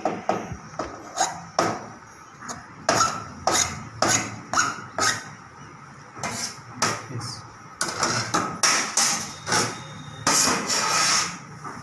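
Cleaver chopping down through a layered chocolate pastry and knocking on a plastic cutting board: a string of sharp, irregular knocks, about one to three a second, with a longer scraping sound near the end.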